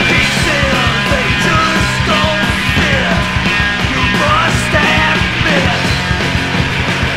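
Punk rock song playing loud: a full band with a steady pounding low end and melodic lines sliding up and down in pitch.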